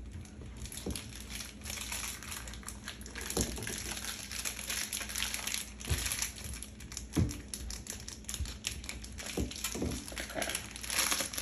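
Cheddar cheese being grated by hand: a run of quick, raspy scraping strokes, broken by a few short low knocks.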